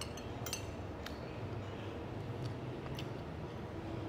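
Cutlery clinking against plates and glassware during a meal: about five light, sharp clinks spread across a few seconds, over a steady low background hum.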